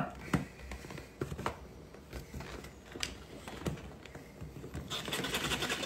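A few light clicks and knocks from a small red-lidded food chopper being handled, then, about five seconds in, a steady rattling as it starts mixing the powdered-sugar and cream icing inside it.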